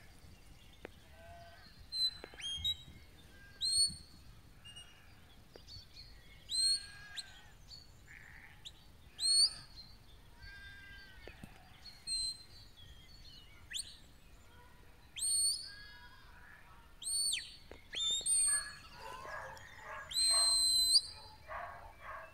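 Shepherd's whistle commands directing a working sheepdog: short, sharp whistled notes that swoop up or down in pitch, given about ten times at irregular gaps, with a longer held whistle near the end.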